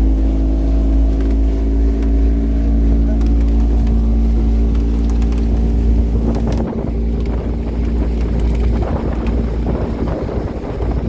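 Small boat's motor running steadily with wind rumbling on the microphone. About two-thirds of the way in, the engine's steady note fades and a rougher rush of wind and water takes over.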